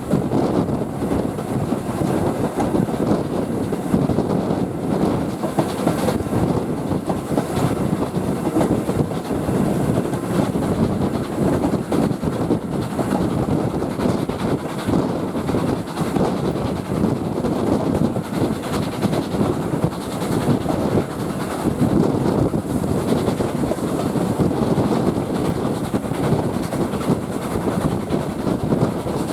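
Train running along the track: a steady rumble and rattle of wheels on rails.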